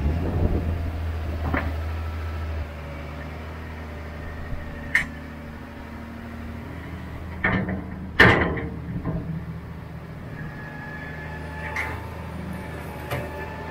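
A farm loader's engine running steadily, dropping a little in level about two and a half seconds in, with several sharp metal clanks from the machine and its bucket; the loudest clank comes about eight seconds in.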